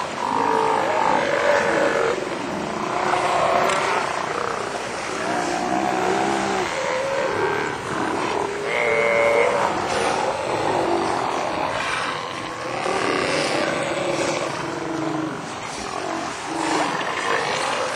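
A group of large wild animals calling at once: many overlapping calls run on without a break.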